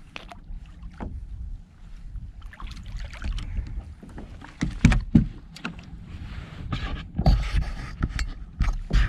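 A codling is lifted out of the sea and onto a plastic kayak: splashing at the surface, then a run of knocks, clicks and heavy thumps against the hull as the fish comes aboard and is handled. The loudest thumps come about five seconds in and again later.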